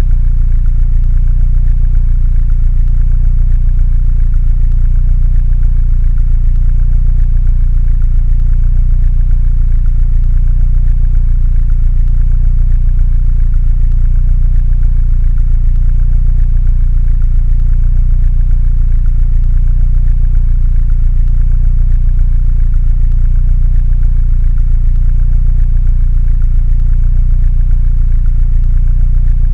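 Mini Cooper engine idling steadily at a low, even pitch.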